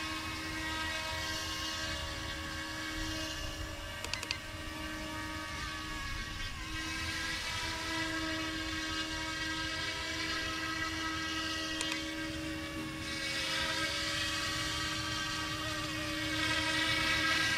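Small electric RC helicopter (YXZNRC F09 Black Hawk) in flight: the steady high-pitched whine of its electric motors and rotors, getting louder near the end.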